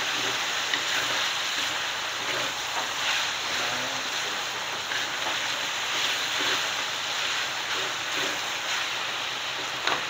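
Chicken pieces and spices sizzling steadily as they fry in a pan, stirred with a spatula.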